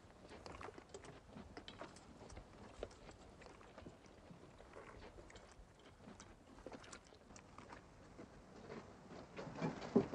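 Faint, scattered clicks and taps of someone eating at a table: cutlery on a plate and chewing. There is a louder knock near the end.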